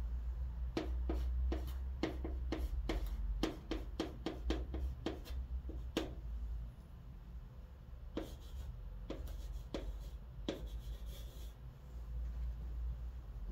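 Chalk writing on a chalkboard: a quick run of sharp taps and short strokes as Korean letters are written, then a few slower strokes with brief scratchy scrapes as the romanized letters are written, over a low steady hum.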